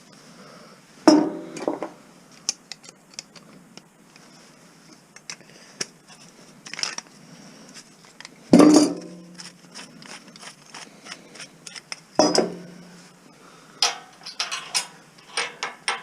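Metal clanking while a cast-aluminum light fixture is dismantled for scrap: three loud ringing metal knocks, about a second in, around eight and a half seconds and around twelve seconds, with lighter metallic clicks and clinks between them.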